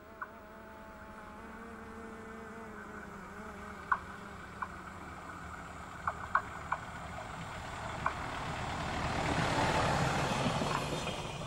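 Diesel light railcar approaching and passing close by: its engine and running noise grow steadily louder to a peak about ten seconds in as it goes past, then begin to fade. A few short sharp clicks sound along the way.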